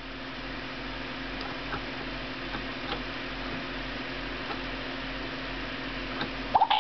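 Steady low hum with a few faint, scattered ticks. Near the end, the Spin Master Zuppies robotic dog starts playing electronic music from its speaker.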